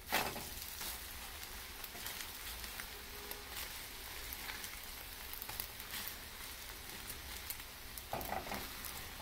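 Omelette frying in oil in a granite-coated nonstick skillet, a steady faint sizzle with fine crackles, and a soft slap right at the start as the omelette is flipped over.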